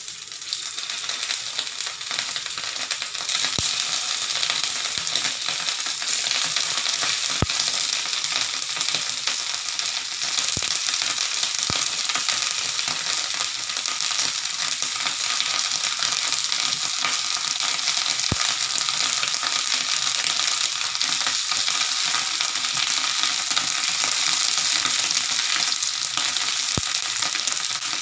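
Tempeh slices frying in hot oil in a non-stick pan: a steady sizzling hiss that swells over the first few seconds as the first slices go in. A few light clicks stand out over it, from the tongs as more slices are laid in.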